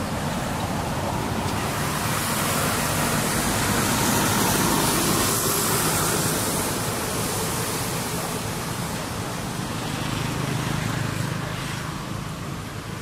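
Road traffic going by: a rushing noise of passing vehicles that swells twice, once in the first half and again near the end.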